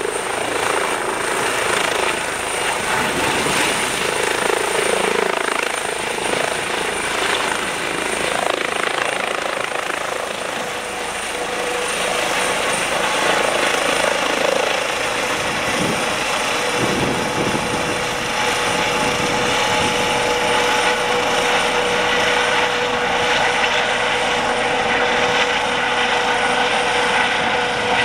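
Eurocopter EC135 twin-turbine helicopter lifting off and climbing away overhead: continuous rotor and engine noise with a steady high whine.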